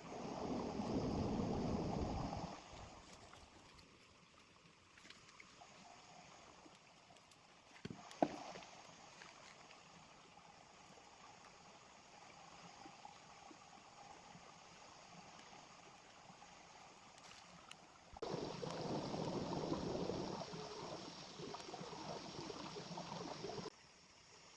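Small river flowing steadily, with two louder stretches of rushing noise, one at the start and one near the end that cuts off suddenly, and a couple of sharp knocks about eight seconds in.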